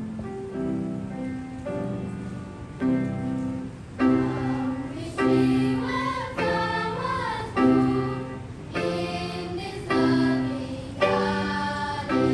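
A choir singing in sustained chords that change about once a second, with a melody line wavering up and down about halfway through.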